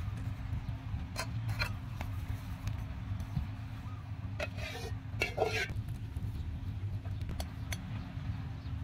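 Metal spatula clinking and scraping against a steel wok, a few short strokes with the busiest run about halfway through, over a steady low rumble.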